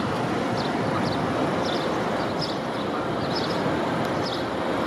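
Steady city street noise with small birds chirping in short, high, repeated notes.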